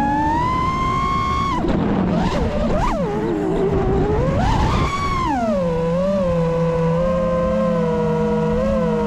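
FPV racing quadcopter's T-Motor Pro V 2020KV brushless motors and propellers whining, the pitch rising and falling with the throttle. The pitch climbs at first, turns into a ragged jumble of quick throttle changes around two to three seconds in, and swells again near five seconds. It then settles into a steady whine with small dips.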